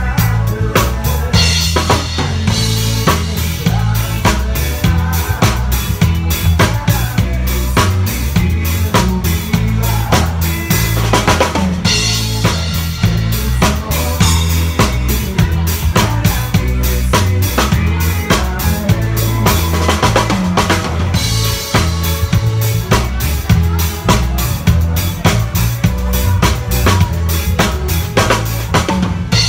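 A DW Design drum kit played live with a band: kick drum, snare and Zildjian cymbals keep up a busy groove. Low pitched notes that change in steps run underneath.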